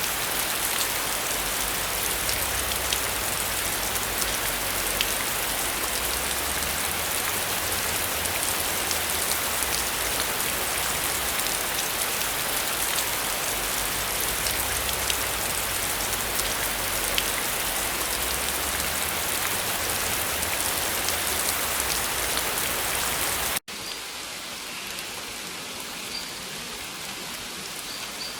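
Heavy rain falling steadily, a dense hiss with scattered drop ticks. About 23 seconds in it cuts abruptly to lighter, quieter rain.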